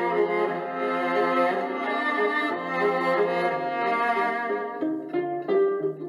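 Background music: bowed strings, violin and cello, playing a smooth melody, breaking into separate shorter notes near the end.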